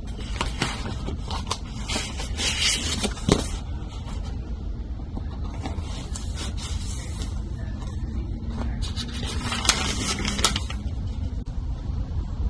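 Paper rustling and scraping as a paper file folder is handled and a composition notebook is slid out of it and opened, in a run of short crinkles with a busier stretch near the start and another near the end. A steady low rumble lies underneath.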